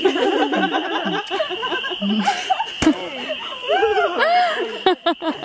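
A small group of people laughing, whooping and calling out together, over a steady high-pitched drone. A single sharp knock sounds about three seconds in.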